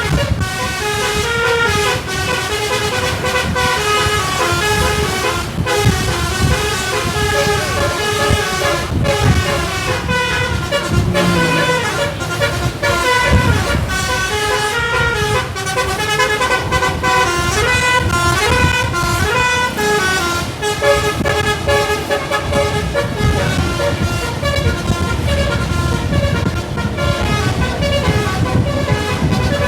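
A tour bus's Basuri telolet horn, a multi-trumpet musical air horn, playing a tune note after note without a break, over a low rumble.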